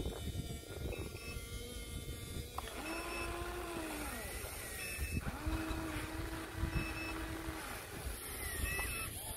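Electric motors of a radio-controlled model excavator whining as the boom and arm move, in two stretches of a couple of seconds each, the pitch sliding at the start and end of each, over a low steady rumble.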